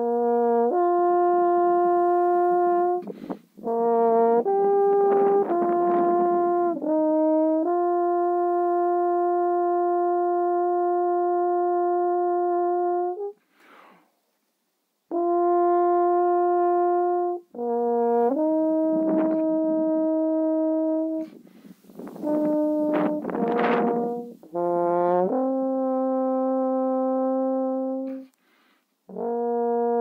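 French horn playing a slow melody of long held notes, with short breaks for breath between phrases. One note is held for about five seconds, followed by a pause of more than a second about halfway through.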